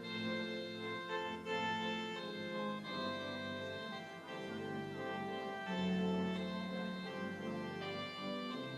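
Church organ played on a three-manual console: sustained full chords over low bass notes, the chords changing every second or two.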